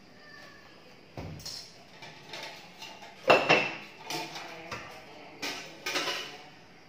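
Metal kitchenware clattering as a pot lid and utensils are handled in a wire dish rack: a string of irregular knocks and clinks, with one sharp metallic clank about three seconds in that rings briefly.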